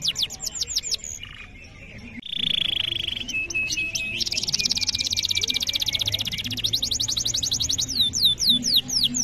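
Male canary singing: runs of quick falling whistled notes. A short buzzy trill comes just after two seconds, and a fast, dense rolling trill starts at about four seconds, slowing back into separate falling notes near the end.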